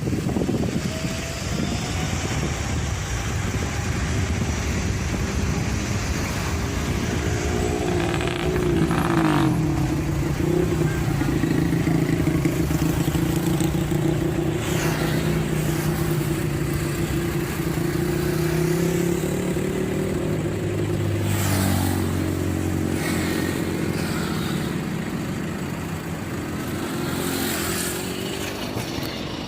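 Road traffic of motorcycles and cars running and moving along, their engine notes rising and falling, with a few brief clatters.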